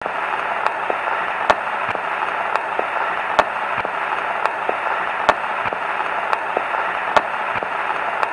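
Steady hiss with irregular sharp pops and clicks, one or two a second: crackling surface noise like that of an old vinyl record, laid over the intro.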